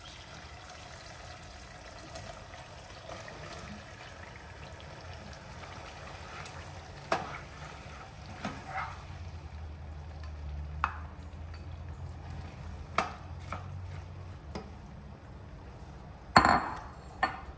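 Chopped tomatoes and onions frying in hot oil in a saucepan, a steady sizzle, while a spoon stirs them with sharp knocks against the pot now and then. A louder clatter of the spoon or pot comes near the end.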